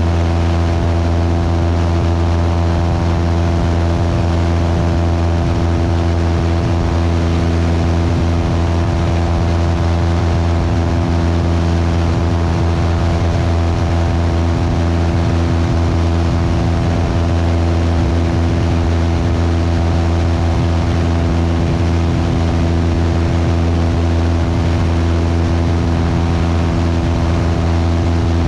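Cessna 172's piston engine and propeller running steadily in flight: a constant drone with a strong low hum and an even hiss of air noise, unchanging throughout.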